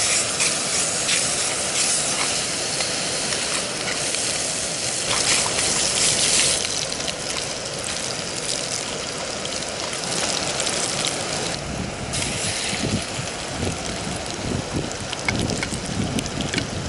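Bacon sizzling and crackling in a frying pan: a steady hiss dotted with small pops.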